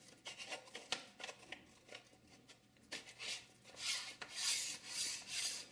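Light clicks and taps as the Pano Pro lens is fitted against the adapter's mount bracket. From about halfway there is a run of rasping, scraping rubs, repeating about twice a second, as the lens's 67 mm thread is screwed onto the bracket.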